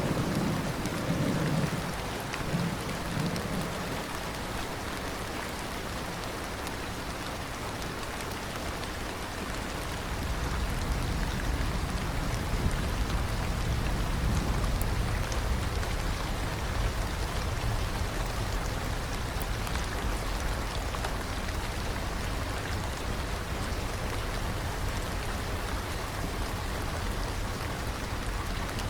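Steady rain falling on a surface, with the tail of a thunder rumble dying away in the first two seconds. A low rumble comes up under the rain about ten seconds in.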